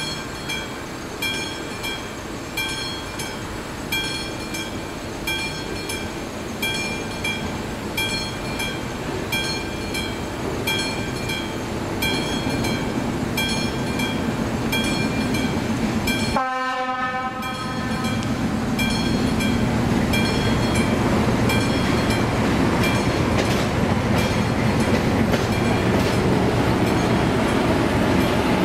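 Level-crossing warning bell ringing in an even, repeating ding, about one and a half strokes a second. In the second half it is drowned out by the growing run of the approaching class 740 diesel shunting locomotive. There is a brief break in the sound just after halfway.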